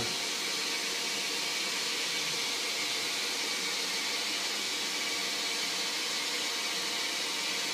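Grizzly G0602 benchtop lathe's spindle and motor running steadily at about 1,065 RPM on a variable-frequency drive: an even, continuous hiss with faint steady hum tones through it.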